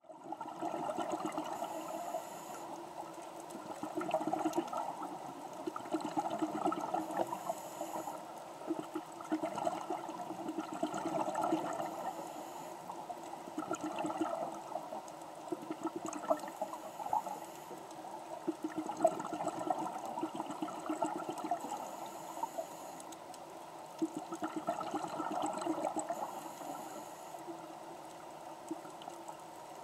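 Scuba diver breathing underwater through a regulator: bursts of exhaled bubbles, with a faint high hiss at each inhale, about one breath every five seconds.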